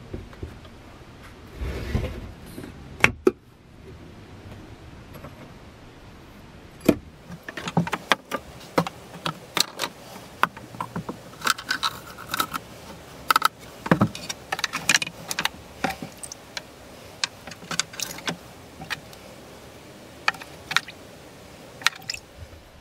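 Irregular light clicks, clinks and knocks, some with a brief metallic ring, as of small metal objects being handled and tapped.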